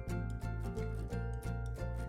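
Background music with a steady, quick beat: a bass line with notes changing about four times a second under a melody.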